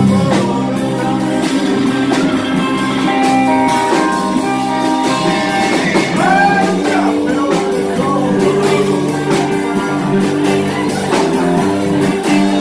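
Live swamp pop band playing: electric guitar over electric bass and a drum kit keeping a steady beat.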